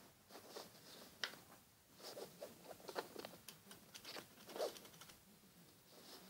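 Faint, irregular rustling and light taps of a sheet of paper being handled and moved on a cloth, with one sharper tick about a second in.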